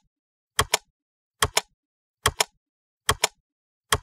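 Sharp double clicks repeating at an even pace, a pair a little more than once a second, about five pairs, with dead silence between: a ticking sound effect, like a clock's tick-tock.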